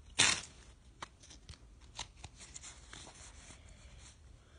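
Pokémon cards and sealed booster packs being handled: one loud rustling swipe just after the start, then light rustles, crinkles and small clicks of the packs and cards.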